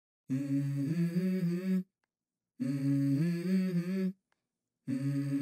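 A low voice humming a short melody in three phrases of about a second and a half each, with pauses between them, as the opening of a song.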